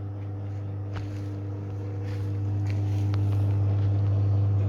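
Vintage Frigidaire Super DeLuxe Automatic 50 front-loading washing machine running empty after its first power-up in years, a smooth, steady low hum that grows louder in the second half, with a light click about a second in.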